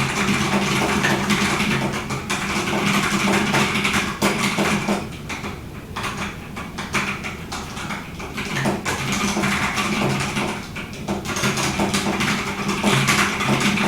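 Fast typing on a UT47.2 40% mechanical keyboard with Drop Halo True tactile switches: a dense, rapid clatter of keystrokes that thins out and gets quieter for several seconds in the middle, then picks up again near the end.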